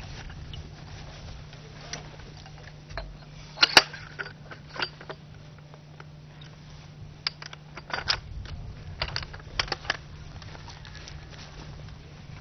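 Scattered metallic clicks and clinks of an Arizona Vortex rescue tripod's metal leg sections, feet and locking pins being handled and fitted together. The loudest comes a little under four seconds in, with a cluster more later on, over a steady low hum.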